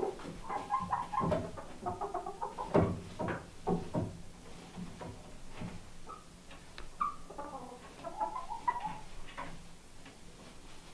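Young hens on their roost perches making soft, sleepy bedtime cooing and murmuring calls in short runs, with a few sharp knocks around three to four seconds in.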